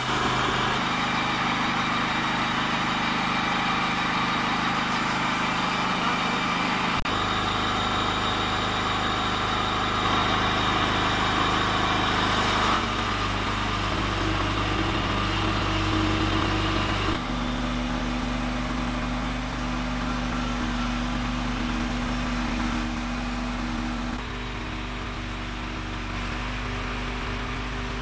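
Homemade horizontal bandsaw mill running on its 13 hp petrol engine, the band blade cutting through an old poplar log. A steady engine drone sits under the sawing noise, and the sound shifts abruptly several times.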